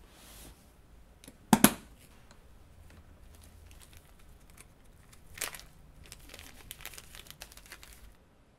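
Crinkling and tearing of a plastic or paper wrapper being opened by hand. There is a sharp double snap about one and a half seconds in, another smaller snap near the middle, and a run of small crackles toward the end.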